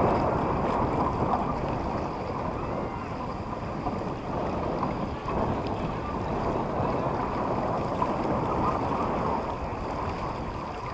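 Wind rushing over the microphone, mixed with water noise from a sailing yacht under way, a steady rushing with no distinct events.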